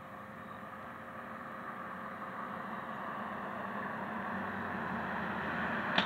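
A motor vehicle's engine and road noise, steady and growing gradually louder as it draws nearer.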